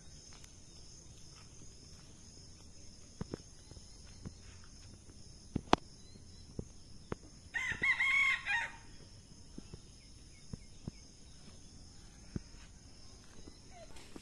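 A rooster crows once, a call about a second long a little past the middle. Under it run a steady high hiss and a few scattered light clicks.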